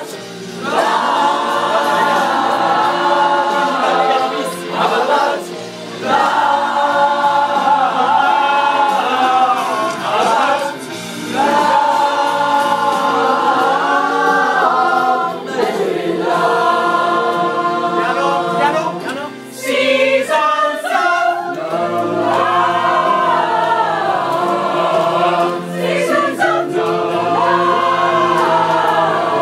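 A group of voices singing loudly together in chorus, in long held phrases with short breaks between them.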